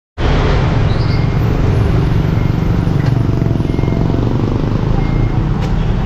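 Steady street traffic noise: a continuous low rumble of passing vehicle engines.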